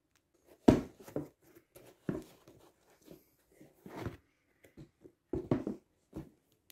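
Handling noises as a pair of leather sneakers is moved about on its cardboard shoebox: an irregular series of knocks and rustles, the loudest about a second in.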